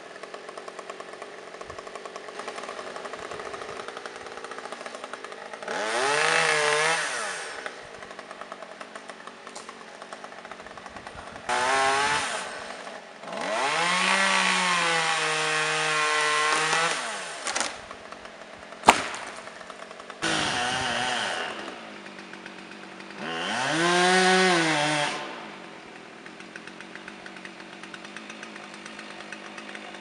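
Husqvarna 357XP two-stroke chainsaw idling with a fast, even ticking, revved up five times; each rev climbs in pitch and falls back, and the longest is held for about four seconds. A single sharp crack sounds a little past halfway.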